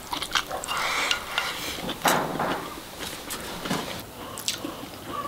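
Wooden chopsticks clicking and scraping against a ceramic rice bowl as rice is shoveled into the mouth, with chewing. Many short clicks, the scraping loudest about one to two seconds in.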